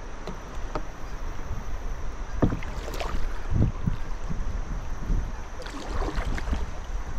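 A kayak drifting through choppy river water: steady rushing and lapping of water around the hull, with a few knocks and splashes in the middle and again near the end.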